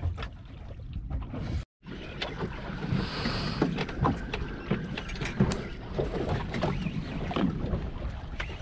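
Water slapping against a small fishing boat's hull, with wind on the microphone and scattered light knocks and clicks; the sound cuts out for a moment a little under two seconds in.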